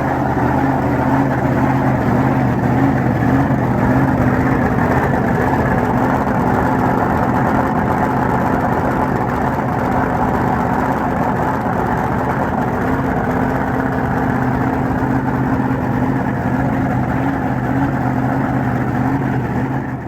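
Drag boat engine idling steadily at a loud, even note, with only a slight waver in pitch.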